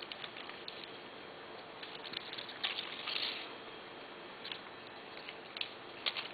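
Light rustling and scattered small clicks of plant stems and twigs being handled, with a denser rustle about three seconds in.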